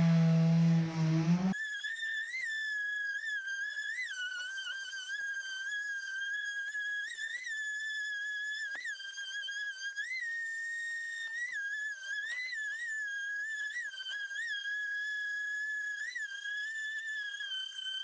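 Electric random orbit sander running on wood: a steady high motor whine with brief rises in pitch every second or so, thin and with no low rumble under it.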